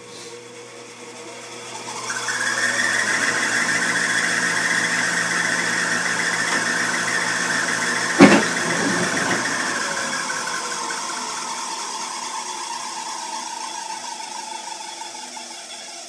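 Tempstar gas furnace starting up. About two seconds in, a whine with hiss rises and runs steadily. About eight seconds in, the burners light late with a single loud bang: a delayed-ignition explosion that the repairer blames on a faulty Honeywell SmartValve gas valve. The whine then slowly falls in pitch and fades.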